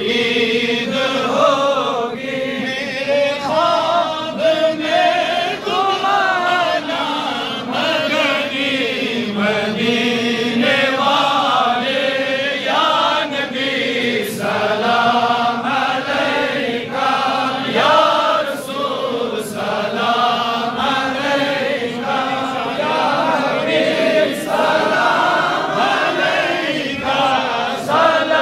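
Men chanting a devotional chant together, one lead voice into a microphone with others joining, in continuous phrases whose pitch rises and falls.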